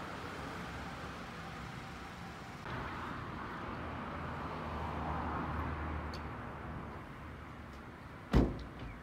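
Outdoor traffic noise: a steady hum of road vehicles with one passing more closely around the middle, and a single sharp knock about eight seconds in.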